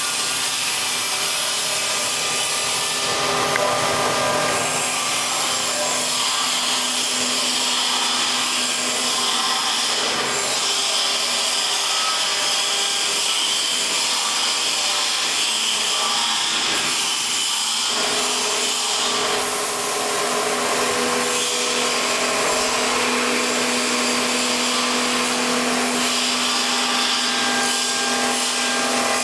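CNC router spindle running steadily while the cutter machines a cylindrical workpiece turned on the rotary axis: a steady motor whine over the noise of the cut.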